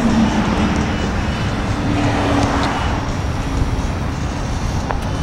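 Steady low background rumble of road traffic.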